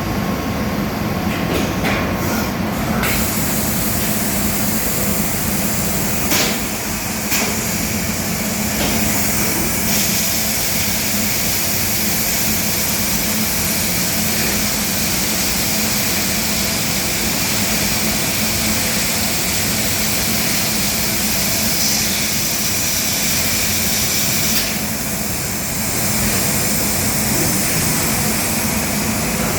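CNC machining centre working furniture panels: a steady machine hum with a high hiss that comes in about three seconds in, and a few brief clicks.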